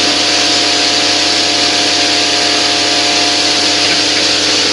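Self-service coin-operated car wash running its high-pressure pump, with water hissing steadily from the spray wand over a low, even hum.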